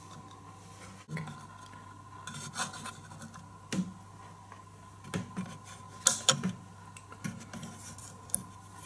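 Small metal parts of a vintage projector's lamp housing being handled: irregular clicks, taps and short scrapes as magnets are tried against the pieces to find which are magnetic. The loudest cluster of clicks comes about six seconds in.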